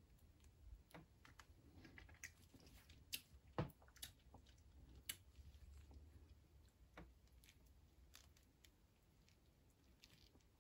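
Quiet eating sounds: scattered sharp clicks and taps of a plastic MRE spoon against a plastic food tray, with faint chewing. The sharpest clicks come about three to five seconds in.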